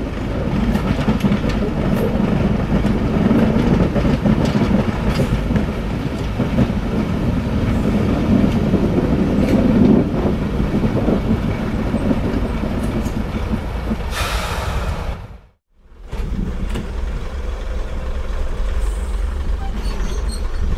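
Heritage first-generation diesel multiple unit running into a station, its underfloor diesel engines running with wheel noise on the rails. A short hiss about three-quarters of the way through, then a brief break before a steadier, lower engine sound.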